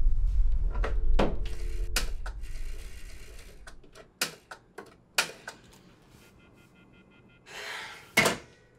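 Film sound design: a loud low rumble with a few sharp hits, then scattered clicks as a rotary wall telephone is dialled. A short, rapidly pulsing tone follows, then a rising rush ends in one sharp loud hit near the end.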